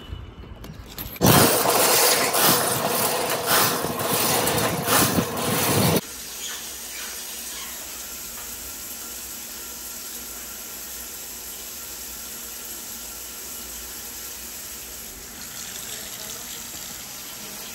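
Loud rattling clatter from a drum drain-cleaning machine feeding its steel cable down a roof vent. About six seconds in this cuts off suddenly, and a steady hiss of water follows as it runs down a shower drain that now drains freely, the line cleared.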